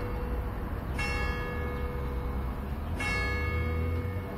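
The third bell of a five-bell church set swung in distesa, calling to the weekday evening Mass. It strikes twice, about two seconds apart, and each stroke rings on with a steady hum, over a low rumble.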